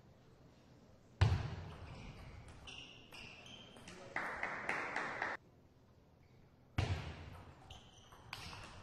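Table tennis ball sounds in a large hall: scattered short clicks and pings of the celluloid ball on bats and table, amid hall murmur. A sharp thump about a second in is the loudest sound, and the sound cuts out suddenly for over a second past the middle before returning with another sharp onset.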